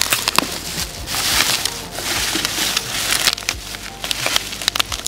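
Bubble wrap crinkling and rustling as it is pulled and unwound by hand, in several louder stretches with sharp crackles scattered through.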